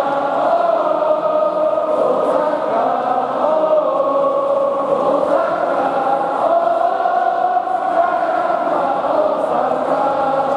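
Football supporters in the stands singing a chant together, many voices holding a slow, shifting melody.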